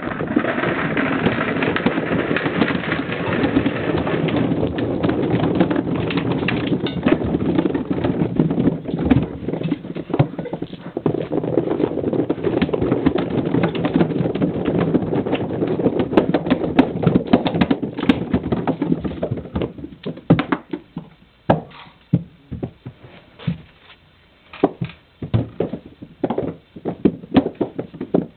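Several hundred mixed balls (bouncy balls, marbles, golf balls and tennis balls) bouncing and rolling down carpeted stairs in a dense, continuous clatter. About two-thirds of the way through it thins out to scattered single bounces as the last balls come down.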